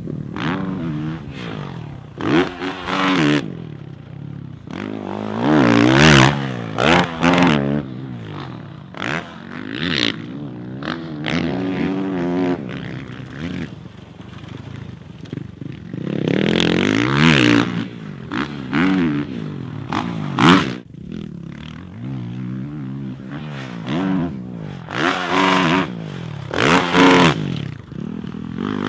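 Motocross dirt bikes lapping a supercross track. The engines rev up and fall off again and again as the riders throttle through jumps and corners, with several loud full-throttle pulls.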